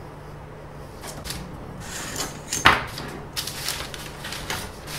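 Paper rustling and rulers being handled on a workbench as a flexible ruler is laid on a sheet of paper to trace a curve, with one sharp knock about halfway through and a few smaller clicks.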